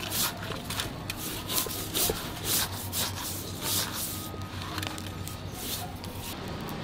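Hands rubbing coarse salt onto a whole fish's scaly skin: rapid scratchy rubbing strokes of salt grains against the scales, thinning out after about four seconds.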